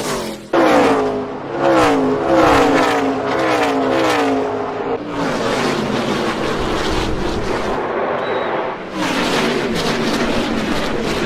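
NASCAR Gen 6 Cup car's V8 engine at racing speed, loud. For the first few seconds its pitch repeatedly rises and drops, roughly once a second, then it gives way to a steadier, noisier rush.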